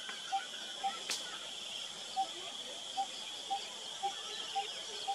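Natural grassland ambience: a steady high insect drone, with a short low call repeated about twice a second. A single sharp click comes about a second in.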